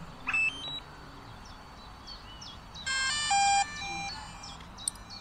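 Electronic power-on tones from a DJI Mavic Air 2 drone kit: a quick rising run of beeps about half a second in, then a louder short chime about three seconds in. Small birds chirp throughout.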